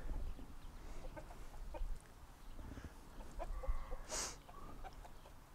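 Silver-laced Wyandotte chickens clucking softly in scattered short notes, with one longer drawn-out call about three and a half seconds in and a brief burst of noise just after it.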